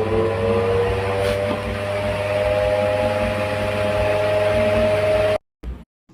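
Electric ceiling fan motor running with a steady low hum and a whine that slowly rises in pitch as it speeds up, over a faint regular pulsing. It cuts off suddenly about five seconds in.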